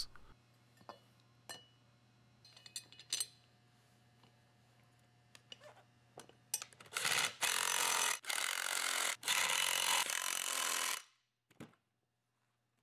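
A few seconds of small metal clinks as bolts and the wheel are handled. Then a cordless drill-driver runs for about four seconds in three runs with brief breaks, tightening the four bolts that fasten the wheel hub to the rim's tabs, and stops sharply.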